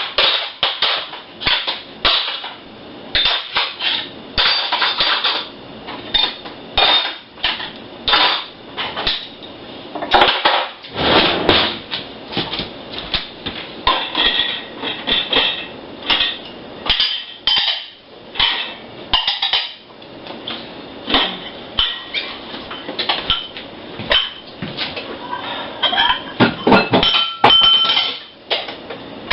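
Dishes and cutlery being handled: an irregular run of clinks, clatters and knocks of plates and silverware against each other, some ringing briefly.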